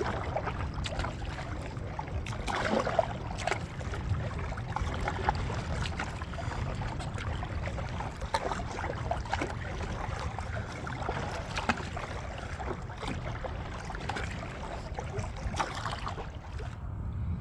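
Kayak paddle blades dipping and splashing in the water, stroke after stroke, under a steady low wind rumble on the microphone.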